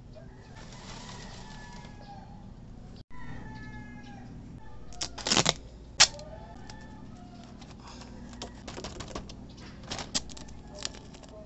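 Scratchy strokes and clatter of a nylon-bristle brush scrubbing a motorcycle drive chain, with two sharp knocks about halfway through. Birds chirp in the background.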